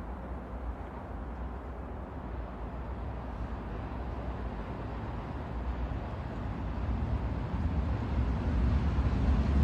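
Indian train rumbling along, growing steadily louder over the last few seconds.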